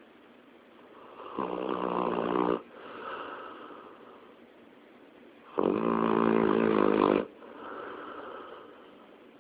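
Snoring in a slow, regular rhythm: two loud, buzzing snores about a second and a half long, roughly four seconds apart, each followed by a quieter breath.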